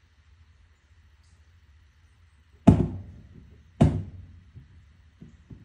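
Two heavy thuds about a second apart, followed by a few lighter knocks near the end, over a low steady rumble.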